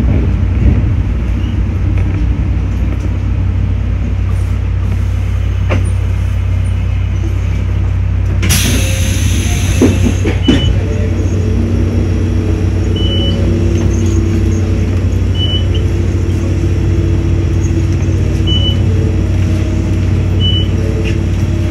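Mizuma Railway electric train heard from the cab, with a steady low rumble. About eight seconds in, a hiss of air lasts about a second, like the air brakes releasing. Then the traction motor whine climbs as the train pulls away, with four short high beeps in the second half.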